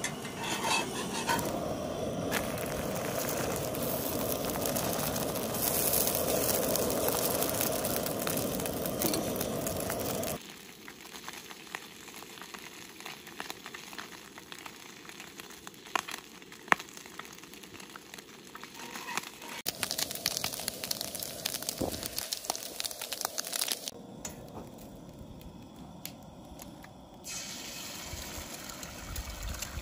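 Food sizzling and crackling in a frying pan on a propane camp stove, with a spatula scraping and clicking against the pan. A louder steady rushing noise covers about the first ten seconds and stops abruptly.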